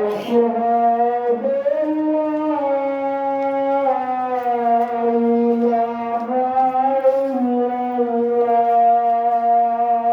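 Background music: one unbroken melodic line of long held notes that glide slowly between a few pitches.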